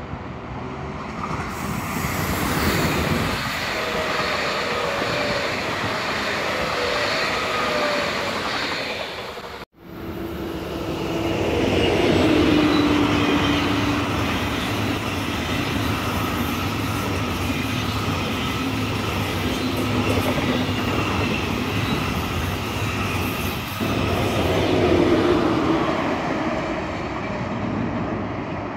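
Deutsche Bahn ICE 1 (Class 401) high-speed train passing, a steady rumble of wheels on rails with whining tones over it. The sound breaks off abruptly about a third of the way in, then the passing resumes.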